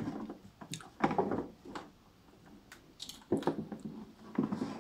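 Hard plastic toolbox and its tray being handled: a few scattered light clicks and knocks of plastic, with a quiet stretch about two seconds in.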